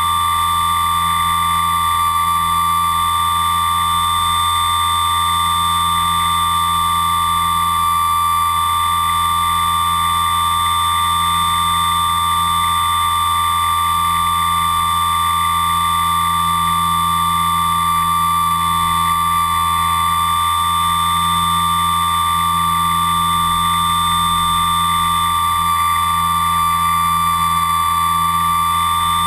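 Electric motors and propellers of a camera-carrying RC aircraft, a high steady whine at constant pitch with a low hum beneath, heard through the onboard camera.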